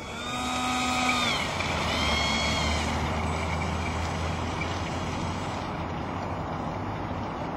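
The 70 mm electric ducted fan of a foam RC F-4 Phantom jet running. A high whine drops away about a second in, the pitch rises and falls briefly a second later, and then a steady rushing hiss continues.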